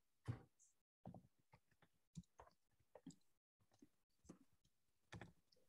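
Near silence with a scatter of faint short clicks and small noises, the loudest about a third of a second in.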